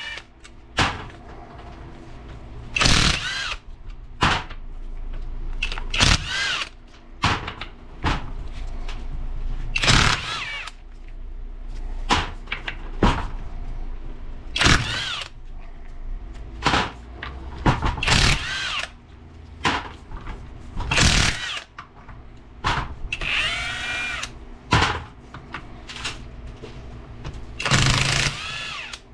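A power tool runs in about a dozen short bursts, spinning out the bolts of a transfer case's bearing retainer.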